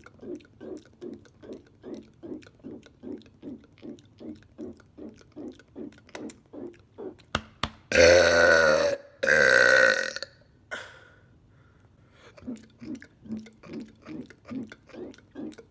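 A man's loud, long burp in two parts about eight seconds in, each part about a second long and strongly pitched. Before and after it comes a steady run of short throat sounds, about three a second.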